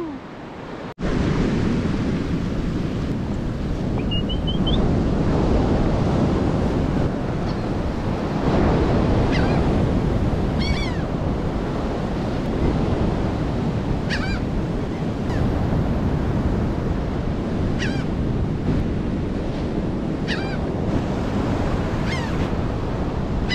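Ocean surf breaking, with wind on the microphone. Short bird calls come over it every few seconds.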